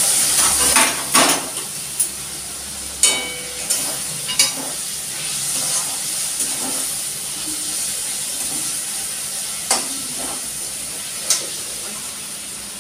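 Chicken frying in hot oil in a steel wok, sizzling steadily, with sharp clinks of a metal spoon against the wok and a steel cup as the excess oil is spooned out. The clinks come several times in the first few seconds, then twice near the end.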